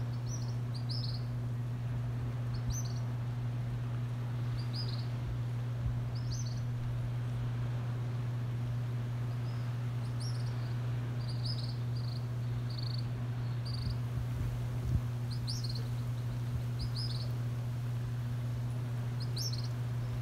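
Short, high chirps from a young bird begging to be fed, repeated every second or two, over a steady low hum.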